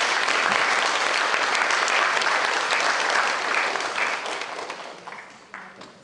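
Audience and panellists applauding, a dense patter of many hands clapping that fades away over the last second or two.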